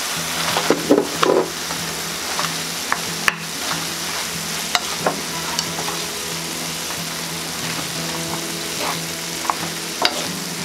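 Wooden spatulas breaking up and mixing cooked rice into stir-fried kimchi in a still-hot frying pan with the burner turned off, with a steady sizzle from the pan and scattered light clicks of the spatulas against it.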